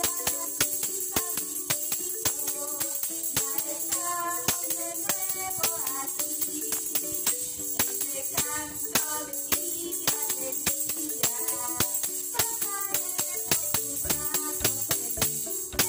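Hand-held tambourine struck against the palm in a steady beat of about three hits a second, its jingles ringing, as a woman sings a song along with it.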